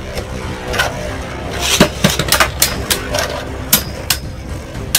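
Two Beyblade Burst spinning tops, Ultimate Valkyrie and Rage Longinus, whirring around a plastic stadium and colliding with repeated sharp plastic clacks, several coming in quick succession after the first two seconds.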